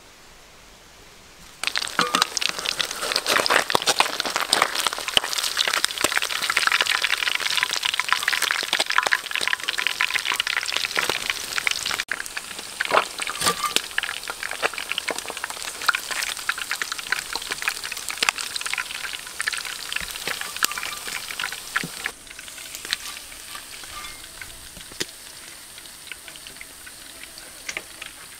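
Whole sea fish frying in hot oil: a dense crackling, popping sizzle that starts suddenly about a second and a half in and eases to a quieter sizzle about 22 seconds in.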